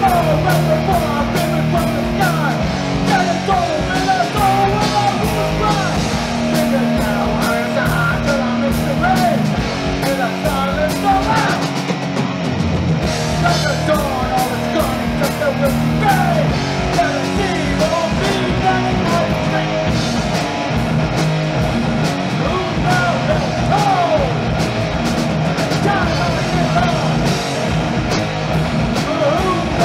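Heavy metal band playing live: loud electric guitars and a drum kit with steady, rapid drum strikes.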